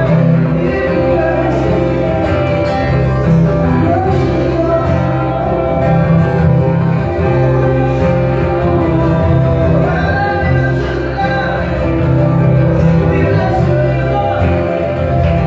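Live worship music: a band with guitar and bass playing a slow song under a singer's voice, with held notes and a bass line stepping between chords.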